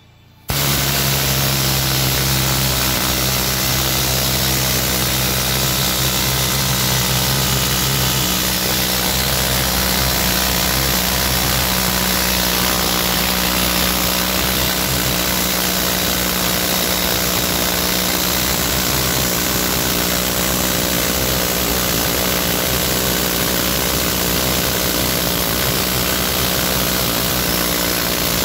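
Loud, steady running of a power tool worked on a stuck common-rail diesel injector to free it, starting suddenly and holding an even level, with a low hum that drops away about eight seconds in.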